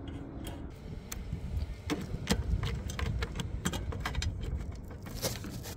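Clicks, taps and light scrapes of hands handling an antenna cable on roof tiles, over a low steady rumble; the clicks come thick from about two seconds in.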